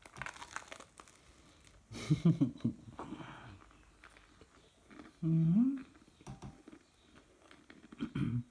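A man chewing a mouthful of pizza, with small clicking mouth sounds. Short voiced sounds come through the full mouth about two seconds in and near the end. About five seconds in he gives a held 'mmm' hum that rises in pitch.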